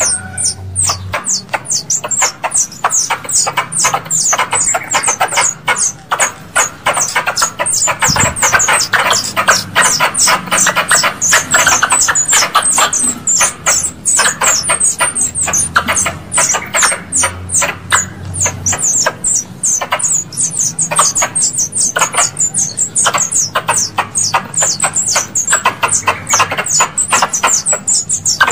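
Squirrel lure call: a squirrel's rapid, unbroken chattering of sharp, high chips, several a second, each falling slightly in pitch.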